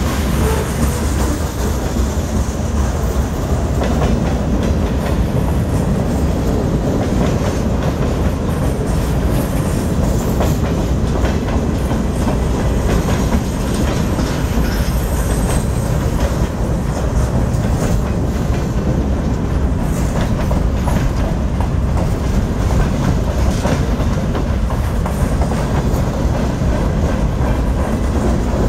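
CSX manifest freight train's cars rolling past close by: a steady rumble of steel wheels on rail, with clickety-clack as the wheels cross the rail joints.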